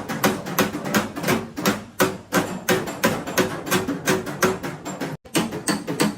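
Hammer blows on car body sheet metal: panel-beating, rapid strikes several a second, with a brief cut-out about five seconds in.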